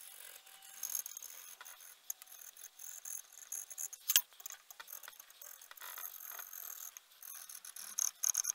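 Metal scribe scratching along a steel blade blank coated in layout fluid as it traces around a paper template: faint, high-pitched scraping in short, uneven strokes, with one sharp tick about four seconds in.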